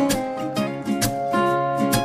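Background music: plucked acoustic guitar with a steady beat.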